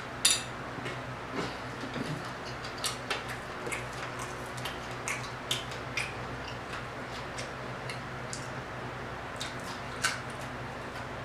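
Close-up eating sounds of crispy fried croaker being picked apart by hand and chewed: scattered sharp crunches and mouth clicks, the loudest just after the start and again near the end, over a steady low hum.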